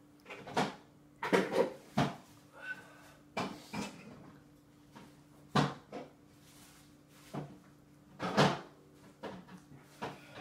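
A toddler eating with her fingers from a stainless steel bowl on a high-chair tray: irregular knocks and clicks of hands and bowl, about a dozen over ten seconds, the loudest near the end. A steady low hum runs underneath.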